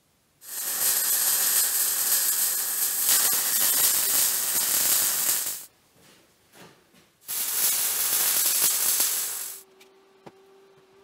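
Electric welding arc crackling and hissing as square steel tubes are welded together: one run of about five seconds, a short pause, then a second run of about two seconds. A faint steady hum is left after the second weld stops.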